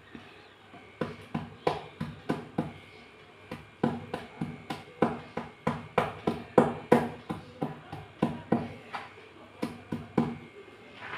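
A stone pestle pounding wet slate pencil pieces against a stone countertop, crushing them. It makes a run of sharp crunching knocks, about three a second, with a couple of short pauses.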